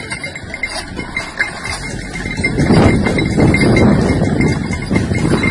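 A team of draught cows at work on tilled ground: irregular clopping and scraping, louder from about halfway through.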